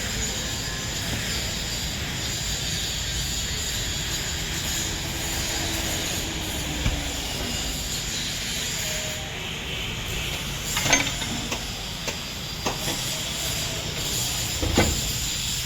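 Stick arc welding on a steel truck chassis: a steady hissing crackle, with a few sharp metal knocks in the second half.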